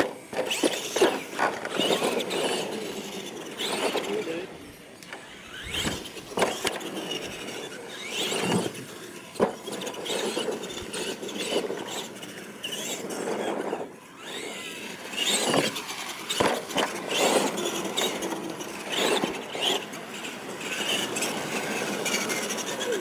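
Radio-controlled monster truck driving hard on a dirt track, its motor and drivetrain whining up and down with the throttle, with several sharp knocks from jump landings and hits.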